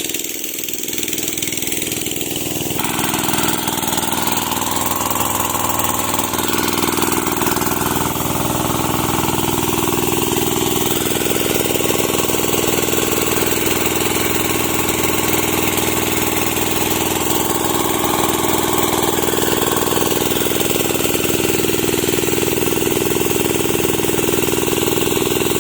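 Sanchin MS30 engine-powered pest sprayer running steadily, picking up over the first few seconds and then holding a high, even speed while it sprays a mist.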